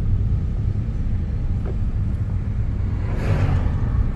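A car being driven at road speed, its engine and tyres making a steady low rumble, with a brief rush of noise about three seconds in.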